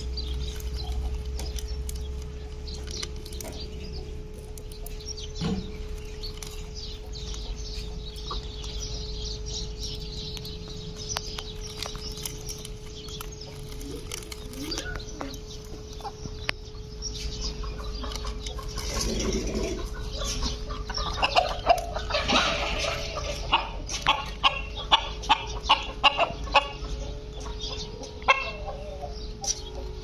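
A hen clucking, loudest in the second half as a run of short calls about two a second, over scattered small clicks of parakeets cracking corn kernels in their beaks.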